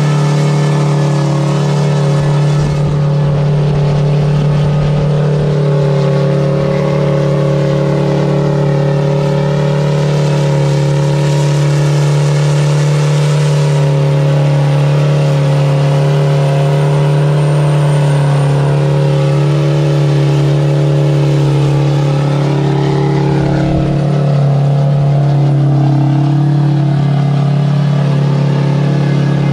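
Semi-truck's diesel engine held at full revs at an almost unchanging pitch during a burnout, with the hiss of its rear tyres spinning on pavement; the pitch wavers briefly about three-quarters of the way through.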